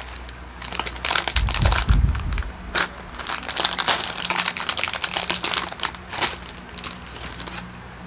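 Plastic potato-chip bag crinkling and rustling in irregular bursts as it is pulled open and handled.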